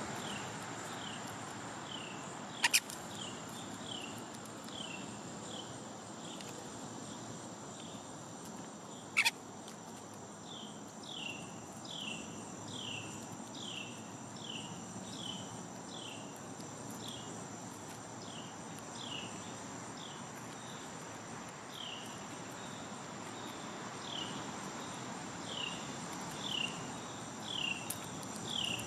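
A bird repeating a short falling chirp about one and a half times a second over a steady high insect drone, with two sharp loud clicks, one a few seconds in and one about nine seconds in.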